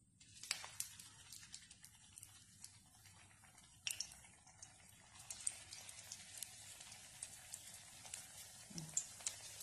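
Potato cutlets shallow-frying in hot oil: a faint, steady sizzle with frequent small crackles and pops, and sharper pops about half a second and four seconds in.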